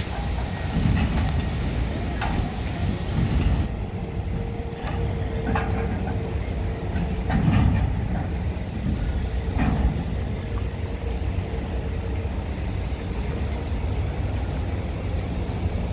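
Steady low machinery rumble that rises and falls unevenly, with a few sharp knocks and clanks here and there and a faint steady hum through the middle stretch.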